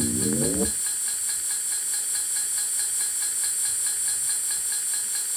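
Electronic music: a synth chord glides upward and cuts off under a second in, giving way to a steady hiss of noise with a faint even ticking in it.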